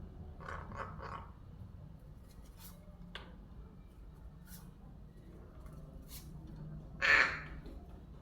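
Young crow giving one loud, harsh call of about half a second near the end, after three short softer sounds near the start and a few scattered clicks and taps.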